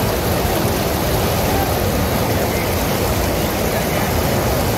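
The Ganges flowing fast past a ghat's steel railings and steps: a steady, loud babbling rush of water splashing against them.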